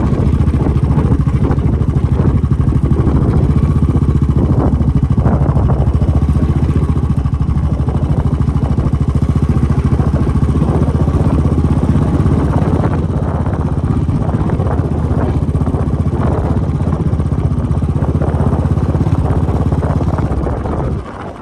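Vehicle engine running steadily at an even speed, then dropping away suddenly near the end.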